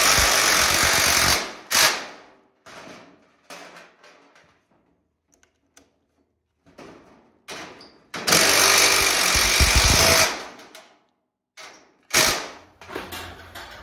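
Cordless Milwaukee impact driver hammering screws through a steel garage door hinge into the door section: two rattling runs of about two seconds each, at the start and about eight seconds in, then a short burst near the end, with light clicks of handling between.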